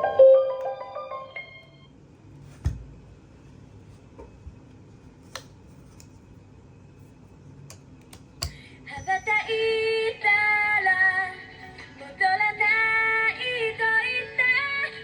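A short electronic tone, a few light clicks, then about nine seconds in the NFC sticker music player starts playing a song with a female or synthetic singing voice. This is the player reading the NFC disc and beginning playback.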